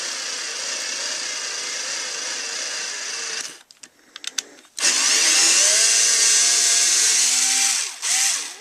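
Ryobi Tek4 4-volt cordless screwdriver running as it drives a screw into wood, with the clutch set higher. It stops about three and a half seconds in, a few clicks follow, then it runs again louder for about three seconds.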